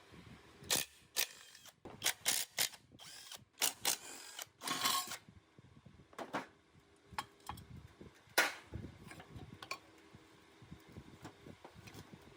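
Hand-tool work on metal parts: a quick run of clicks and short scraping bursts, a single louder clack about eight seconds in, then scattered light ticks.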